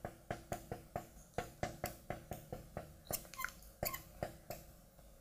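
Marker pen tapping and ticking on a glass lightboard while writing an equation: an uneven run of small sharp clicks, about four a second.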